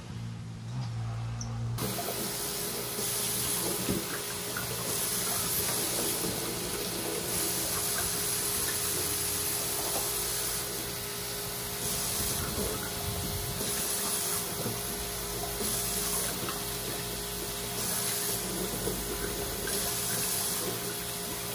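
From about two seconds in, water from a kitchen tap runs steadily into a stainless-steel sink while glass bottles are rinsed under the stream, the splashing swelling and easing every second or two as the bottles fill and are emptied.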